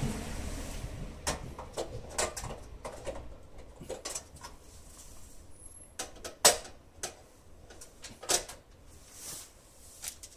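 Irregular clicks and knocks from front-door lock hardware being handled and fitted, with two louder sharp clicks about six and a half and eight seconds in.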